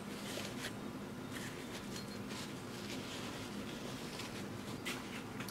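Soft rustling and rubbing of a paper towel wiping a metal air-cylinder part held in gloved hands, with a light click near the end, over a faint steady hum.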